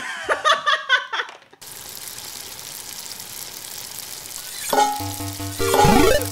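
Two women shrieking for about the first second and a half, then a steady sizzle of frying in a pan. About five seconds in a music jingle comes in, with a falling glide near the end.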